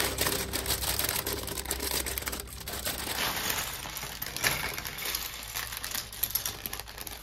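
Plastic bag of Lego pieces crinkling as it is opened and emptied, with a dense patter of small plastic bricks clattering onto a hard countertop.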